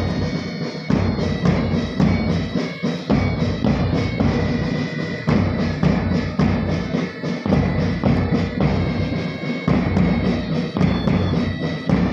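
Marching band playing a march: a steady beat of drums, including bass drum, under a held melody that moves from note to note.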